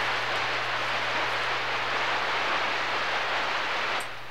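CB radio receiver on channel 6 (27.025 MHz) hissing with open-channel static between transmissions, over a faint steady hum. The hiss drops away about four seconds in as the signal drops off or the squelch closes.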